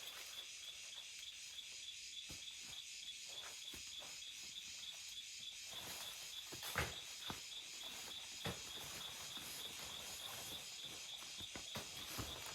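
A steady chorus of insects chirping, crickets by the sound of it, with a few short sharp clicks or snaps scattered through it; the loudest click comes about seven seconds in.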